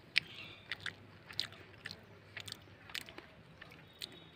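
A person chewing a fire-roasted quail egg close to the microphone: quiet, irregular small clicks and crackles.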